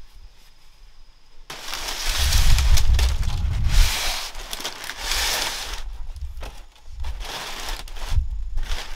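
Leaves and sticks rustling and crackling with many sharp snaps, starting about a second and a half in, easing off briefly around the middle and picking up again near the end.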